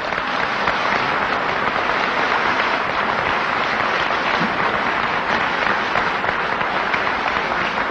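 Audience applauding, a dense, steady clapping that sets in right after a speaker's line and carries on without a break.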